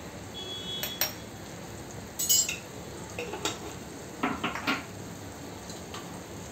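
Metal spoon clinking against a stainless-steel kadai as coriander powder is spooned in: light, separate clinks, with a quick cluster of them about four seconds in, over a faint steady hiss.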